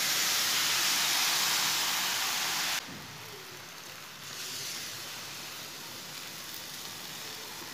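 Water poured into a hot pan of fried semolina, sizzling and hissing. It is loud for about the first three seconds, then drops suddenly to a quieter, steady sizzle.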